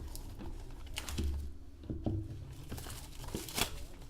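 Packaging of a Topps Supreme football card box crinkling and tearing as it is opened by hand, a run of irregular crackles and scrapes.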